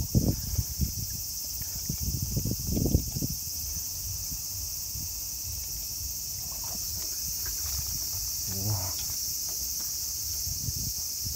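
A steady, high-pitched chorus of insects buzzing without a break. In the first three seconds, low thumps and rustles come from handling the moving phone and rod.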